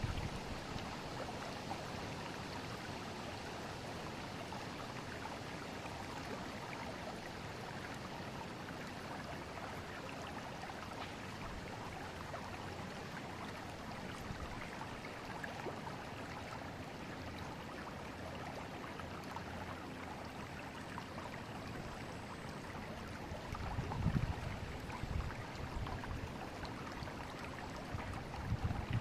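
Forest river water flowing steadily, an even rushing with a faint gurgle. About twenty-four seconds in come a few low rumbles that are louder than the water.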